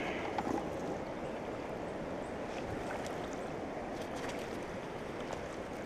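Steady rush of a swollen, fast-flowing river's current along the bank, with a few faint clicks just after the start.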